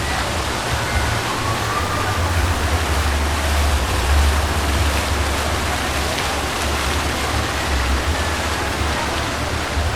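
Steady rushing noise with a deep, uneven rumble underneath, and faint distant voices in the mix.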